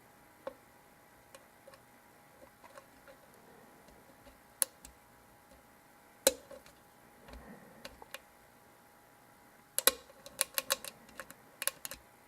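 Lock pick working the pin stack of a Zeiss Ikon euro cylinder under tension: scattered sharp metallic clicks and ticks, with a quick run of them near the end, the small clicks of pins being lifted and setting.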